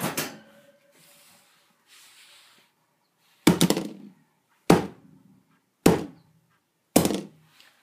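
Four heavy thuds about a second apart: a dumbbell smashed down on an iPod lying on a wooden floor.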